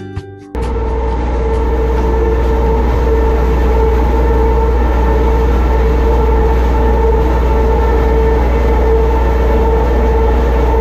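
An engine running steadily: a loud, even drone with a deep rumble and a constant hum, starting abruptly just after a strummed guitar piece cuts off.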